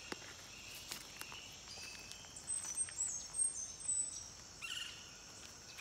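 Several birds giving short high chirps and whistles at intervals, over a steady high-pitched insect hum.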